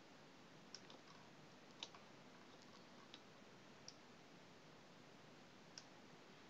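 A handful of faint computer mouse clicks, about six and spread out, over a near-silent background hiss.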